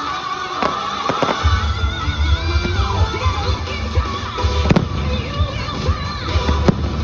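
Fireworks show bursts over loud orchestral show music played through outdoor speakers. There are a few sharp bangs, the loudest a little past the middle, and a deep booming rumble from about a second and a half in.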